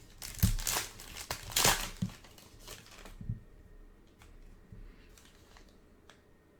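Foil trading-card pack wrapper being torn open and crinkled by hand. The crinkling is busiest for about the first three seconds, then dies down to a few faint rustles and ticks.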